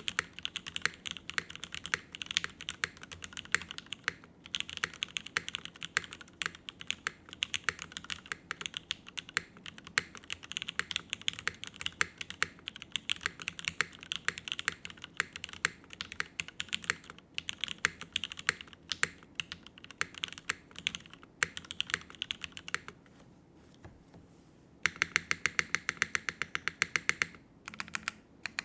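Typing on a Jennie TKL custom mechanical keyboard with linear Cherry Retooled Black switches, a full aluminium top-mount plate and GMK doubleshot keycaps: dense, steady keystrokes. About 23 seconds in the typing stops for two seconds, then comes a fast, very even run of keystrokes before ordinary typing resumes.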